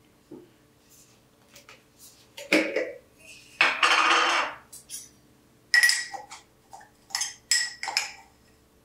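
Glass jars clinking and knocking on a wooden table as baking ingredients are handled. About three and a half seconds in there is a second-long scraping rush, the loudest sound, followed by a run of sharp, ringing clinks.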